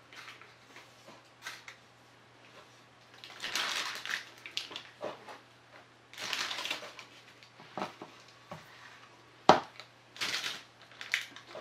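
Irregular rustling and scraping of hands handling art supplies, in short bursts of a second or less, with a sharp knock about three quarters of the way through.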